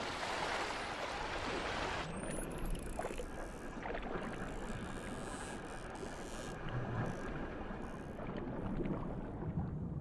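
Open sea: wind and water rushing at the surface for about two seconds, then quieter underwater ambience with scattered clicks and a few brief high rising whistles from a pod of dolphins.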